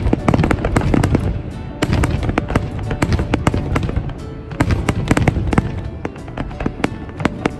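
Aerial fireworks display: shells bursting loudly in quick succession with crackling stars, densest in the first couple of seconds and again around five seconds in.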